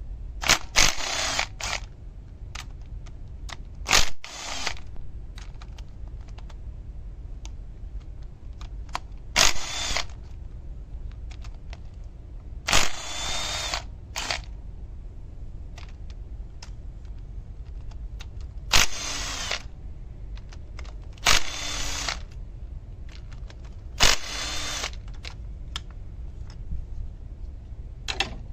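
A cordless power tool whirs in short bursts of under a second each, about eight times, several seconds apart. It is spinning out the camshaft bridge bolts on an Audi 2.0 TFSI engine's cylinder head.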